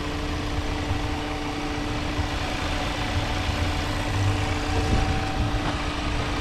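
Audi turbocharged TFSI petrol engine idling steadily, heard over the open engine bay: an even low rumble with a steady hum above it. It sounds healthy: "doesn't sound bad."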